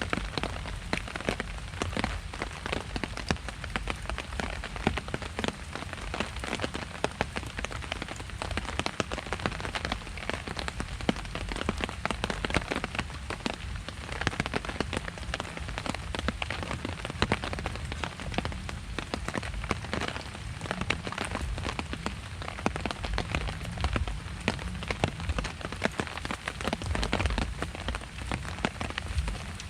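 Steady rain falling, with many separate drops tapping close to the microphone over a low rumble.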